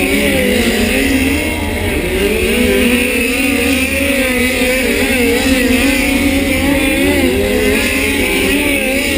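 Several midget race car engines running together on a dirt oval during hot laps, their pitches rising and falling as they circle.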